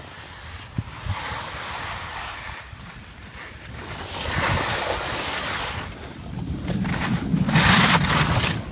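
Rushing noise of a downhill ski run: wind buffeting the microphone and skis hissing over snow. The noise swells in surges and is loudest near the end.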